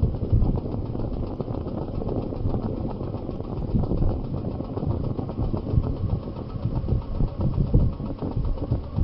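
A vehicle's engine and road noise while driving: a steady low rumble with uneven surges in loudness.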